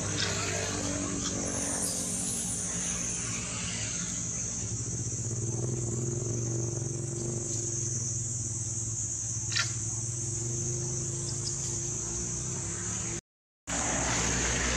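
Steady high-pitched drone of insects with a constant low hum underneath and a single sharp click about ten seconds in; the sound cuts out for about half a second near the end.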